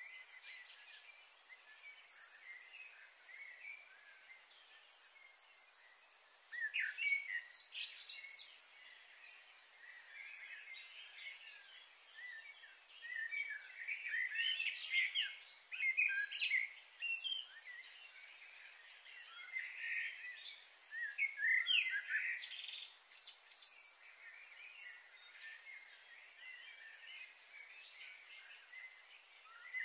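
Songbirds chirping and calling in scattered clusters, over a steady high hiss.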